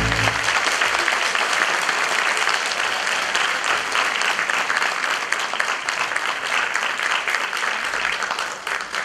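Audience applauding, dense and steady, right after the orchestral music's final chord dies away.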